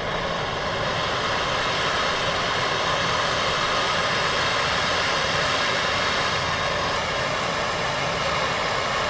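Handheld gas torch burning with a steady hiss, its flame heating a heavy 6-gauge battery cable terminal so that solder can be fed in.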